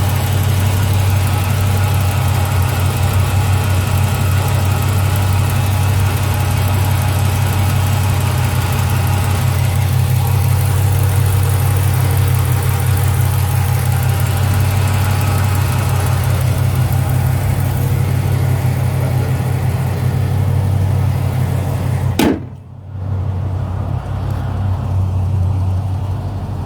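Chrysler 300 SRT8's 6.1 Hemi V8, fitted with long-tube headers and a cat-back exhaust, idling steadily with a tick that the owner cannot place between a lifter and an exhaust leak. About 22 seconds in there is a sharp click and the sound drops and turns duller.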